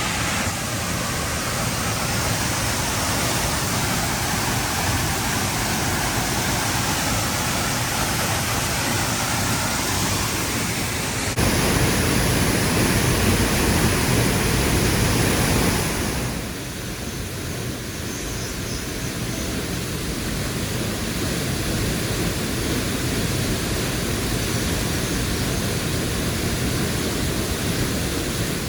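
Steady rushing of a large waterfall's falling water. It steps louder about eleven seconds in and drops back about five seconds later.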